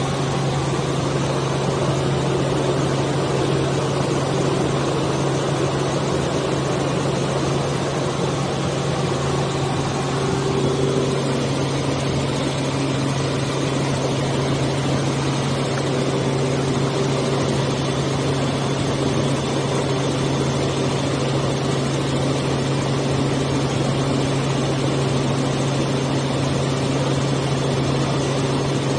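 Helicopter in flight heard from inside the cabin: the engine and rotors make a loud, steady drone with a constant low hum underneath.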